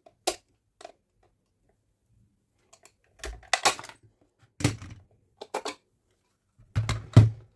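Hard clicks, clatters and knocks from handling a Dyson V15 battery pack's plastic case and its small screws on a work surface: one sharp click just after the start, then a run of irregular clatters and knocks in the second half.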